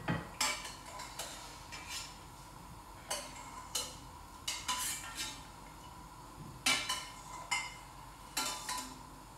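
Metal kitchen utensils clinking and scraping against a pan and tray in a dozen or so short knocks, as cooked celeriac pieces are lifted out of the pan.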